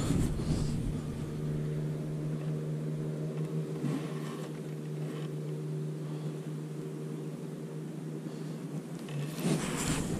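A steady, even-pitched engine hum, with a rush of wind or handling noise on the microphone near the end.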